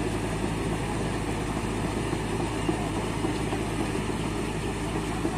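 Kobelco SK210 excavator's diesel engine idling steadily, with no revving.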